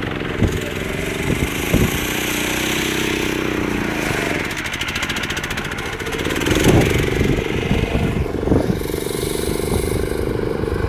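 Small go-kart engine running hard and revving as the kart spins donuts through wet mud; the revs fall away around the middle, then pick up again.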